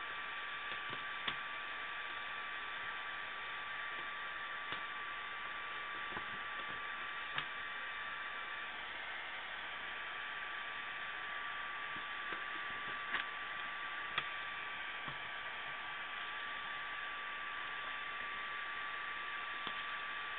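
Steady recording hiss with a thin constant tone running through it, and a few short, faint clicks as the CD booklet's pages are handled.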